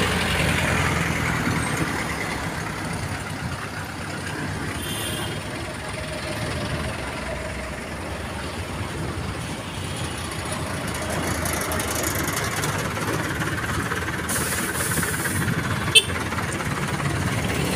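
Street traffic noise from motorized tricycles, a jeepney and a truck, their engines running steadily as they idle and creep along close by. A single sharp click comes near the end.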